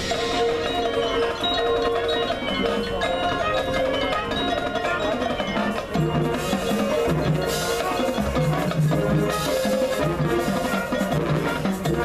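High school marching band playing its field show, with the front ensemble's marimbas and other mallet percussion standing out over held wind notes. Lower notes come in about halfway through.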